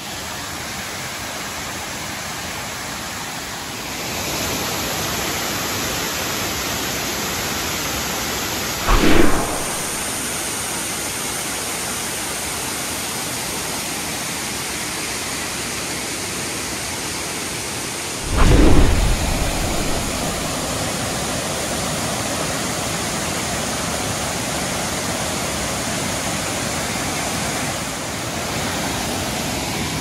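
Two-tiered waterfall pouring into its plunge pool: a steady, even rush of falling water. Two brief, louder low bumps cut in, about nine and eighteen seconds in.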